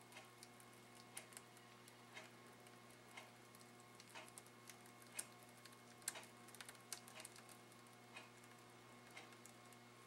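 Near silence: kitchen room tone with a low steady hum and faint short ticks about once a second.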